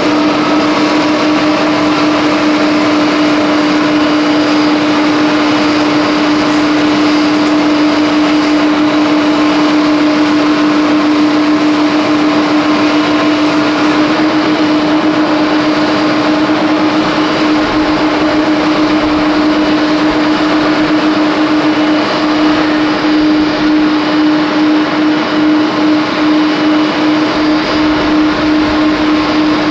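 The four CFM56 jet engines of an Airbus A340-300 running at taxi idle: a loud, steady whine over a continuous rumble.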